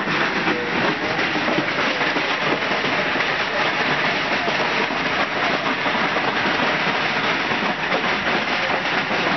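Heavy hail pelting the house, a loud, dense, unbroken clatter of countless small impacts that never lets up.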